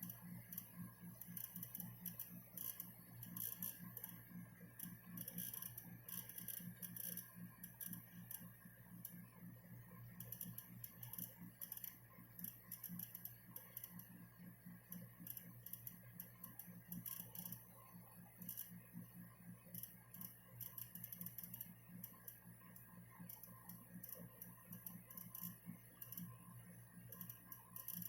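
Panasonic F-Y20EH 10-litre dehumidifier running with a steady low hum and a rapid, irregular ticking. This is the abnormal noise that has persisted through four repairs.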